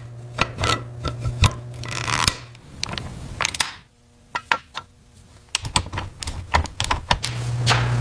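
Irregular, quick clicks and knocks, like small tools and parts being handled, over a low steady hum that fades out for a couple of seconds in the middle and returns near the end.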